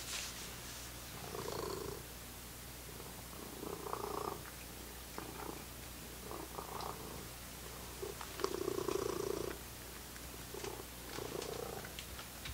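Domestic tabby cat purring close by in uneven pulses, the longest and loudest about nine seconds in, with a few small clicks between them.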